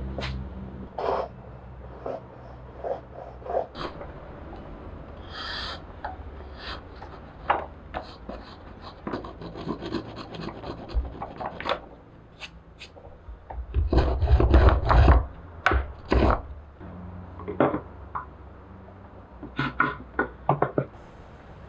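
A hand tool rubbing and scraping across a pine board in short, irregular strokes, with a louder run of strokes about two-thirds of the way through.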